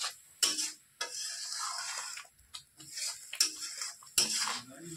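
Metal spoon stirring in a cooking pan, scraping and clinking sharply against the pan several times at irregular intervals.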